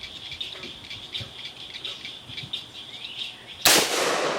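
Insects chirping steadily, then a single gunshot about three and a half seconds in, with a long echo rolling away after it.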